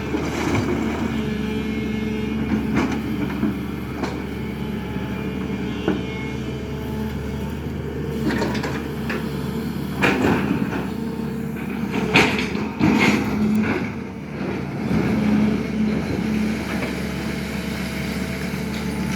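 A SANY excavator's diesel engine running steadily under load, with hydraulics working. Several sharp clanks and knocks come through it, loudest about ten and twelve seconds in.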